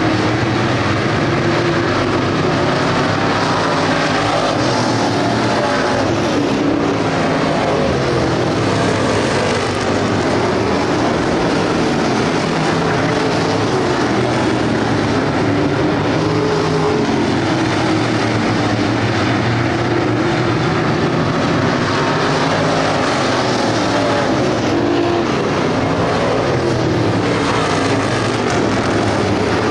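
A field of dirt-track street stock race cars running at racing speed, many engine notes overlapping in a loud, steady din that rises and falls as cars go by.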